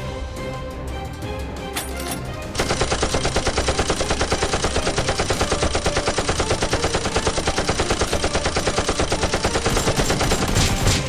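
Rapid automatic gunfire, about eight shots a second, starting about two and a half seconds in and running for roughly eight seconds over background music, with a few louder single shots near the end.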